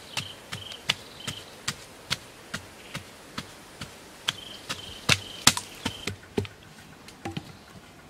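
Wooden digging stick striking and chopping into packed earth, about two to three sharp knocks a second, loudest around the middle, thinning out near the end. An insect chirps in short, high, repeated pulses in the background.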